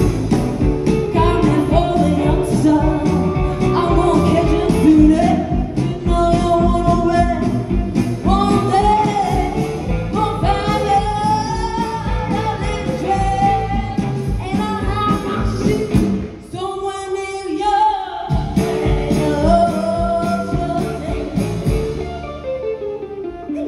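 Live band music: a woman singing over upright double bass and electric guitar. The band thins out briefly about two-thirds of the way through, and the sound drops toward the end.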